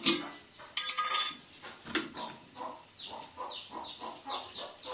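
Dishes clinking and clattering: a sharp clatter at the start, a brighter ringing one about a second in and a knock near two seconds. Small birds chirping throughout.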